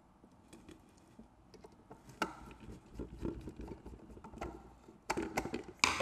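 Small clicks and rubbing of a hand screwdriver turning a screw into a camera's mounting bracket, growing busier after about two seconds. It ends with plastic handling noise and a few sharp knocks as the screwdriver is set down on the table and the camera is moved.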